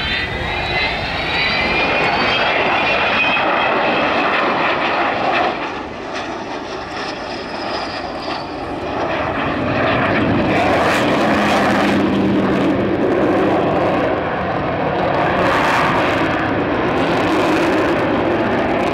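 Avro Vulcan B2's four Rolls-Royce Olympus turbojets on a low flypast: a loud jet roar with a rising whine over it in the first few seconds. About ten seconds in, the engines are opened up and the roar grows louder as the bomber climbs away.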